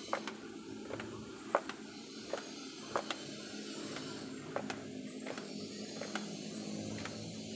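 Footsteps on a concrete path: light, irregular taps about one a second over a steady background hiss.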